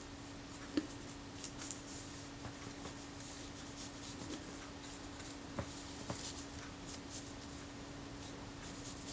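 Toothpick spreading contact adhesive over the back of a leatherette piece: faint soft scratching with a few light clicks and taps.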